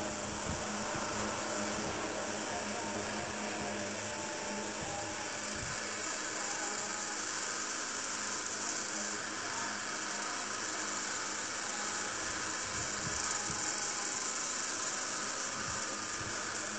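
Small electric fan running with a steady whir and hiss of air.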